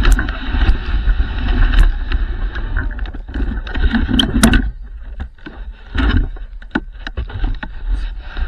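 Dog sled moving over a packed snow trail: the runners slide and hiss with a low rumble, easing off about halfway through, while the sled rattles with scattered sharp clicks and knocks.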